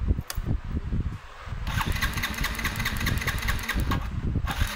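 A small motorcycle engine is cranked over with its spark plug cap held to ground. From about two seconds in, the high-voltage spark snaps across in a fast, even ticking of about four or five clicks a second. A strong, even spark like this shows that the ignition coil and ignition module are working.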